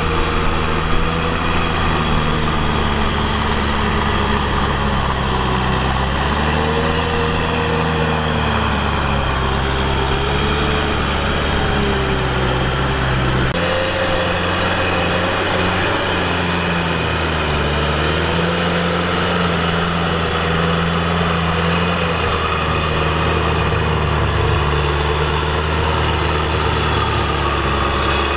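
Kubota M6040 tractor's four-cylinder diesel engine running steadily while working a rice paddy, its engine note rising and falling a little, with an abrupt shift in its tone about halfway through.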